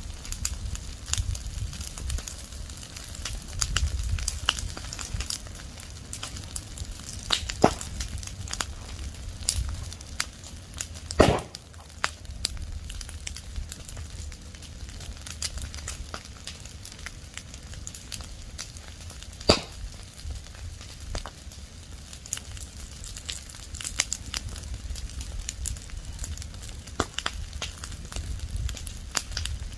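Burning leaves and branches crackling, with a dense run of sharp snaps and pops over a low rumbling hiss of the flames. The loudest pop comes about eleven seconds in, with other strong snaps shortly before and near twenty seconds.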